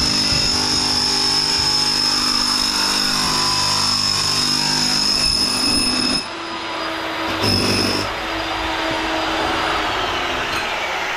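Portable generator running and powering an electric fuel transfer pump that pumps heating oil out of a tank: a steady mechanical drone with a high, steady whine. About six seconds in the sound changes abruptly and the whine drops away, coming back briefly a second or so later.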